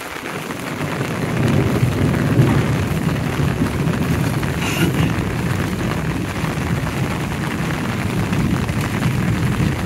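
Steady rain falling on a wet street. A low rumble swells about a second in and carries on under it.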